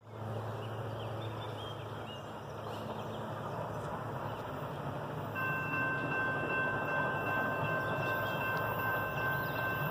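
Norfolk & Western 611, a J-class 4-8-4 steam locomotive, approaching out of sight: a steady rumbling hiss. From about halfway, a chord of several whistle tones is held unbroken.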